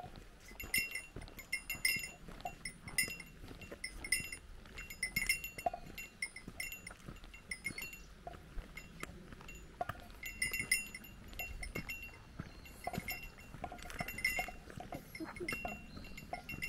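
A small bear bell on a hiker's pack jingling as she walks, ringing in a loose rhythm of about one clang a second with a couple of short pauses.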